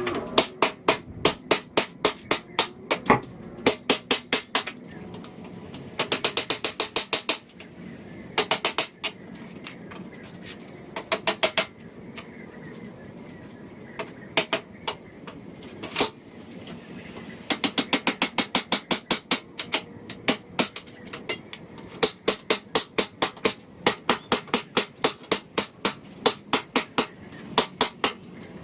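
Hammer striking nails and boards of wooden pallets, in repeated runs of quick blows with short pauses between them.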